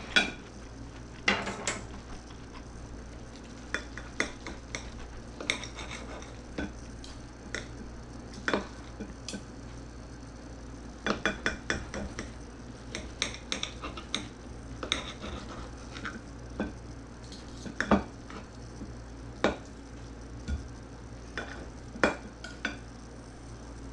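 Knife and fork clinking and scraping on a plate while cutting up a breaded chicken cutlet: irregular sharp clicks, some coming in quick clusters about halfway through.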